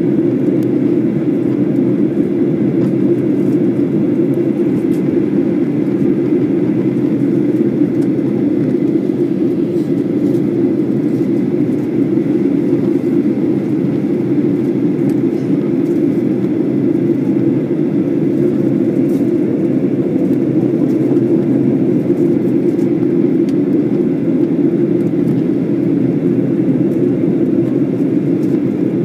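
Jet airliner cabin noise during descent: the steady, even rush of the engines and airflow heard from a window seat inside the cabin.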